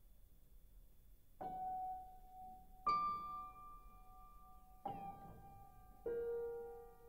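Four single piano notes struck slowly one after another, each left to ring and fade into the next. The second is the highest and loudest, and the last is lower and holds on.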